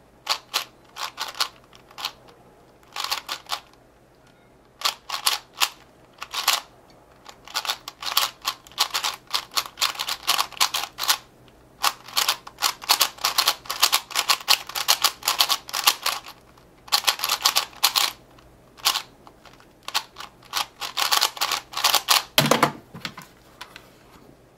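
Maru 4x4 speedcube being turned fast during a solve: bursts of rapid plastic clicking and clacking of the layers, broken by short pauses, with a heavier knock near the end.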